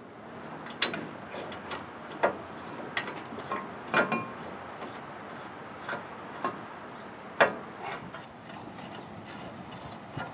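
Scattered sharp metal clicks and clinks, about a dozen at irregular intervals, as brake pad hardware and pads are fitted onto the caliper bracket behind a new front disc rotor.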